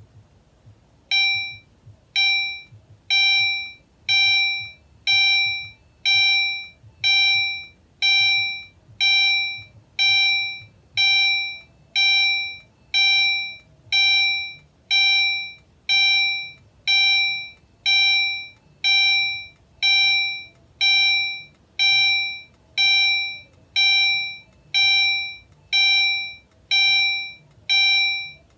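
Fire alarm chime sounding under test, ringing one bright note about once a second. It starts about a second in and runs on steadily, showing the alarm works.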